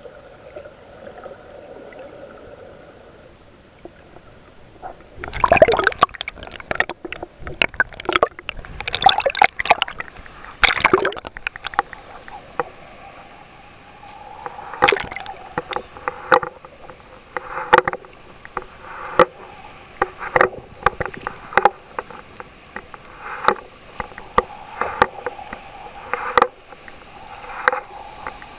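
Seawater sloshing and slapping against a GoPro's waterproof housing as it bobs at the surface, heard muffled through the housing. It starts as a faint underwater murmur, then comes a run of loud splashes, then wave slaps about every second and a half.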